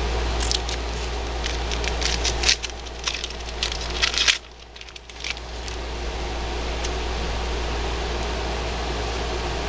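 The wrapper of a hockey card pack being crinkled and torn open: a run of sharp crackles over the first five seconds or so, over a steady background hum.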